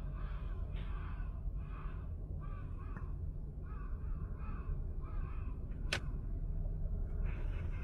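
An animal calling over and over in short, harsh, arching calls, about one every three-quarters of a second, over a steady low rumble. A single sharp click comes about six seconds in.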